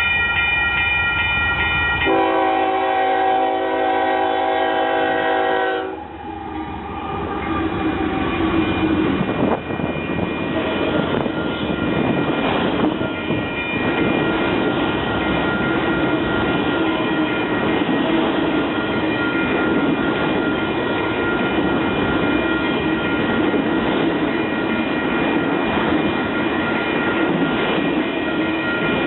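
Locomotive horn sounding a multi-note chord for about six seconds, the chord shifting lower about two seconds in, then breaking off. The train then rolls past with steady wheel-on-rail noise.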